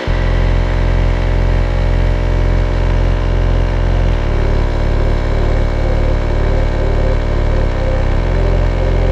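Husky air compressor running, its pump building pressure: a loud, deep hum that comes in suddenly at the start over a steady whine and then runs on steadily.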